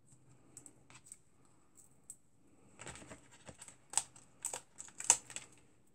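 Cardstock being handled by hand: light paper rustles and scattered small clicks, then a quick run of sharper taps and paper clicks about three seconds in.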